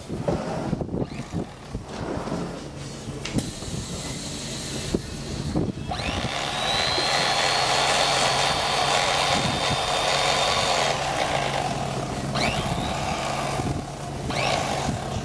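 Electric fillet knife running, its motor buzzing steadily as the serrated blade saws through black grouper flesh. A louder, steady whine joins for several seconds in the middle.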